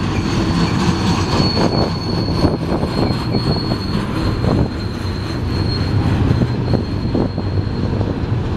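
Freight train of autorack cars rolling past close by. There is a steady rumble, with frequent irregular clunks from the wheels and trucks, and a thin, steady high-pitched wheel squeal above it.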